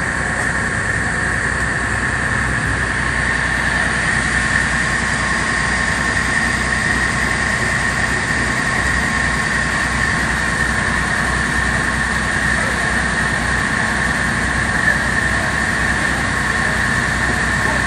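Passenger boat's engine running steadily under way: a constant low rumble with a steady high whine over it.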